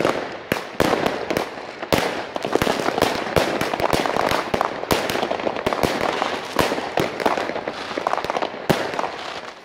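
Many fireworks and firecrackers going off at once: a dense, irregular barrage of sharp bangs over constant crackling, with no let-up.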